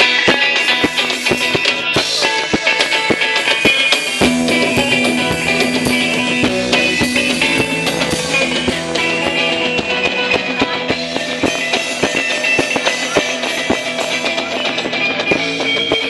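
Surf rock band playing live: electric guitar over a drum kit keeping a steady beat.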